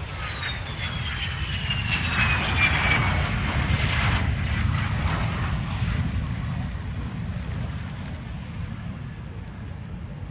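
F-16 Fighting Falcon jet passing by, its engine whine falling steadily in pitch over the first few seconds. A deep jet rumble swells to its loudest a few seconds in and then slowly fades.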